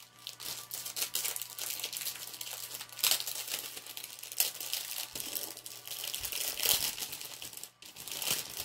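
Taped paper and plastic wrapping crinkling and tearing as it is pulled off a packaged painting, with sharper rips at irregular moments.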